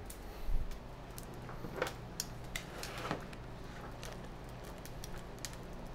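A few light metallic clicks and clinks of tongs on the grill grate as chicken wings go onto a charcoal kettle grill, over a steady low hum.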